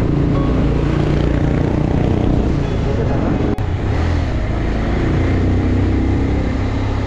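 Motorcycle engine running steadily while riding, mixed with wind and road noise on the camera microphone, with a brief break about three and a half seconds in.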